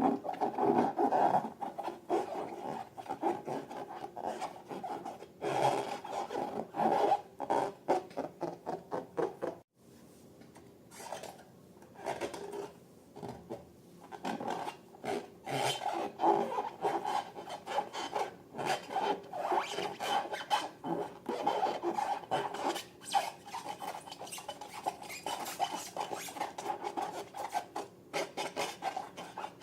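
Hands working slime and rubber balloons: a dense, irregular run of small crackling, rubbing and squishing sounds, broken by an abrupt cut about ten seconds in.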